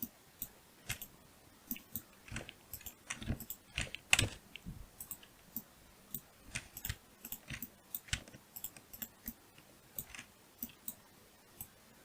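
Irregular clicks and taps of a computer mouse and keyboard, with a denser, louder run of clatter about three to four and a half seconds in.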